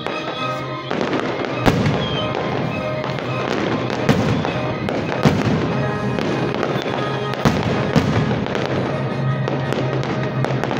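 Fireworks display going off at full intensity: a dense continuous crackle of many small stars and fountains, cut by several sharp bangs, with music playing underneath.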